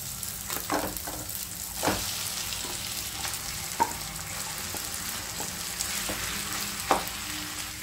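Marinated chicken pieces sizzling as they go into a hot nonstick pan of fried onion masala, stirred with a wooden spatula scraping the pan. A steady sizzle, broken by a few sharp knocks of utensils against the pan.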